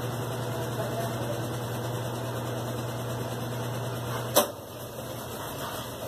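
Consul CWG12 top-load washing machine in its spin cycle, the motor running with a steady hum while the basket spins the wet cloths. About four seconds in there is a single sharp click, and the motor hum stops as the basket carries on spinning down.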